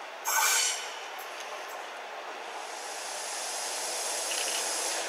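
A train horn sounds one short blast about half a second in. Then the rushing noise of an approaching train grows steadily louder.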